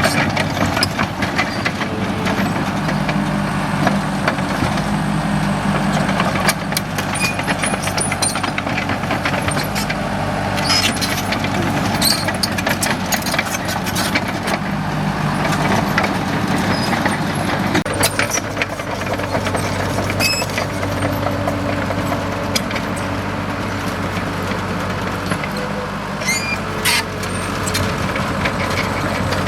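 Komatsu D37EX crawler bulldozer's diesel engine running steadily, its pitch shifting a couple of times, with frequent clanks and short high squeaks.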